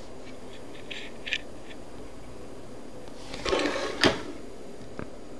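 Handling noise from the parts of a Zippo lighter insert as the wick is worked up through the chimney: a few light ticks, a short rustling scrape, then one sharp click and a last small tick.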